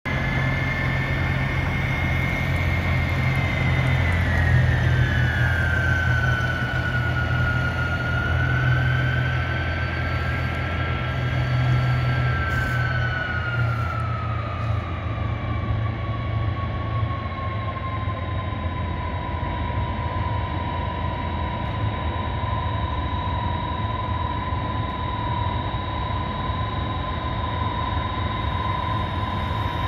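Boeing 747-300's four turbofan engines at taxi power: a steady low rumble under a high whine. The whine falls in pitch over about fifteen seconds, then holds steady.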